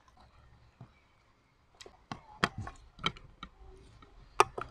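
Mealtime eating sounds: a metal spoon clicking and scraping against a ceramic plate and bowl, with mouth sounds from eating, heard as scattered sharp clicks. The clicks start about two seconds in.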